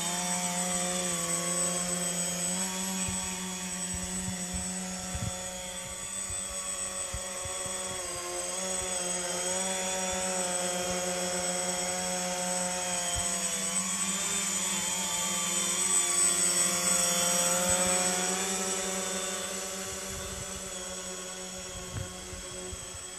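The electric motors and propellers of a HobbyKing C3 tricopter running, a steady whine whose pitch wavers up and down with the throttle as it lifts off and flies low. It is loudest about two-thirds of the way through and fades near the end as the tricopter flies away.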